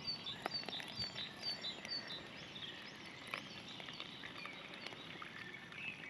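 Hot water poured from a pot into a steel mug of coffee, under a bird's short, high, falling note repeated about twice a second for the first couple of seconds, with scattered crackles from the campfire.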